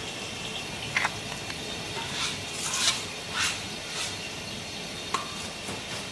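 Hands handling raw mud crab pieces in stainless steel bowls, tossing them in seasoning, egg and flour: a string of short rustles, swishes and light knocks over a steady background hum.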